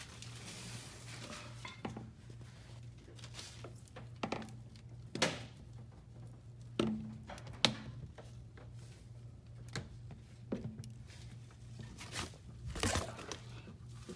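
Scattered clinks and knocks of exhaust pipe parts and bolts being handled while the downpipe is lined up with the B pipe, over a steady low hum.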